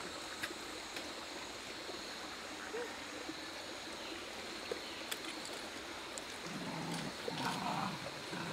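Quiet rainforest ambience: a steady high-pitched hum over a soft background hiss, with a few faint ticks and a short low murmur about two-thirds of the way in.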